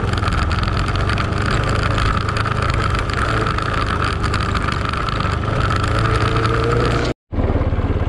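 Motorcycle engine running steadily while riding over a rough dirt forest track. The sound cuts out for a moment about seven seconds in.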